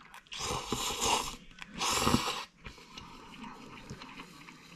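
A person slurping instant noodles off a fork, two long slurps one after the other, then chewing them with soft, quieter mouth sounds.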